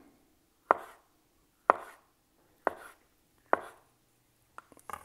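Chef's knife slicing an avocado on a wooden cutting board: four sharp knocks of the blade on the board, about a second apart, then a few lighter taps near the end.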